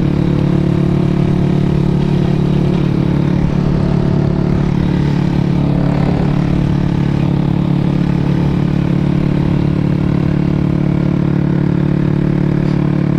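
Motorcycle engine running at a steady, constant speed, a continuous low drone that holds the same pitch throughout.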